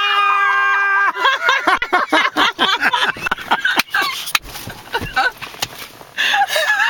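Gulls squawking close around the car: one long, steady cry of about a second at the start, then a run of short, uneven squawks.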